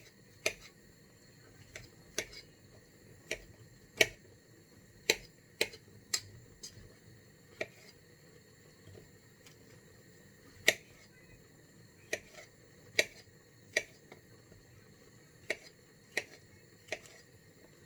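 Knife chopping mushrooms on a chopping board: sharp, separate taps of the blade against the board at an uneven pace, roughly one a second, sometimes two in quick succession.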